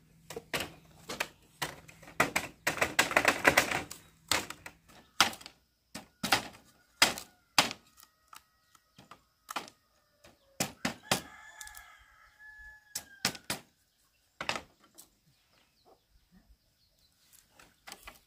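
Irregular sharp knocks and thuds, with a dense run of them about three seconds in. A chicken clucks and calls briefly about eleven seconds in.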